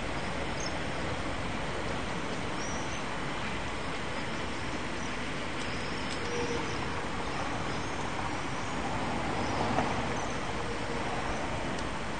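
Steady background noise of a railway station yard, with faint, short high chirps of small birds scattered throughout.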